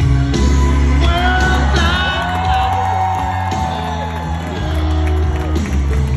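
Music with a heavy bass and a singer holding a long note in the middle.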